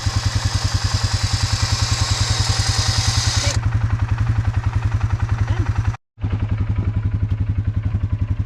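Polaris Sportsman 570 ATV's single-cylinder engine idling steadily, about ten even firing pulses a second. A loud steady hiss sits over it for the first three and a half seconds and stops abruptly, and the sound drops out for a split second about six seconds in.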